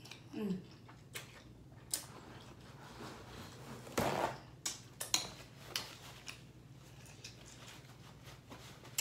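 A paper towel pulled and torn off the roll about four seconds in, followed by a few light clicks and rustles as the sheet is handled. A short falling 'mm' hum comes from the eater near the start.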